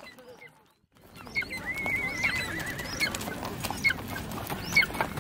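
A horse whinnies about two seconds in, one long wavering call. Short, sharp, high chirps and scattered clicks sound over a busy outdoor background.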